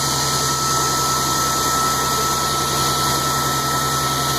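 Blow dryer running steadily, blowing air through a wet dog's coat: an even rush of air with a thin, steady whine over it.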